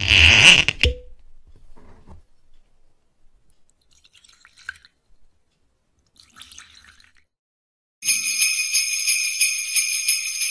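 Jingle bells shaken in a steady rhythm for about three seconds near the end, as an intro sound effect. It follows a short, loud burst of noise at the very start.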